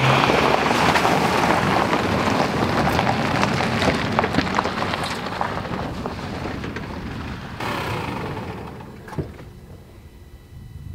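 Nissan Navara pickup's tyres crunching over a loose gravel and rock track, a dense crackle of small stone clicks. About eight seconds in it thins to a quieter rumble with a few single knocks of rocks under the wheels.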